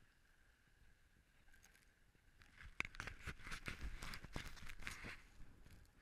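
Snowboard sliding over chopped-up snow: after a quiet start, a few seconds of scraping and rapid clicking chatter from the board and its edges begin about two and a half seconds in and stop about a second before the end.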